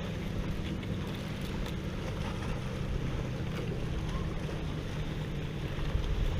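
Steady wind rumble on the microphone, over a light hiss and a few faint pops from burger patties sizzling on a Kuuma stainless steel propane grill.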